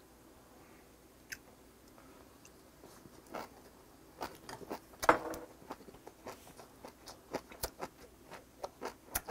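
A person chewing a mouthful of spinach close to the microphone: quiet for about three seconds, then a run of wet chewing clicks and crackles, loudest about five seconds in.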